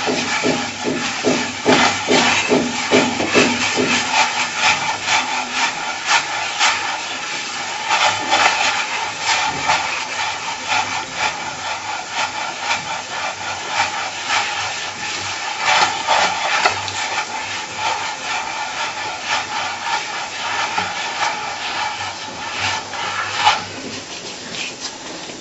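Hands rubbing and rolling damp couscous semolina against a tray, a continuous gritty swishing of grains: the semolina being worked with water into small berkoukech pellets.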